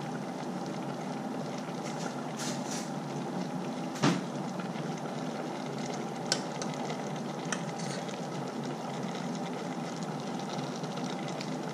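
Steady kitchen hum under a pot of curry simmering on the hob, with a single sharp knock about four seconds in and light clinks of a utensil on the pot a couple of seconds later.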